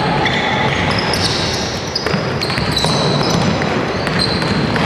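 Basketball game play: a basketball bouncing on a hardwood court while players run, with short high squeaks of sneakers on the floor, over a steady hubbub of voices.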